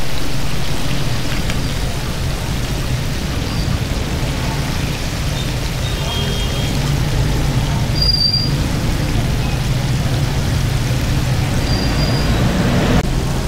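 Steady sizzling of hot oil as chicken skin deep-fries, over a low steady hum.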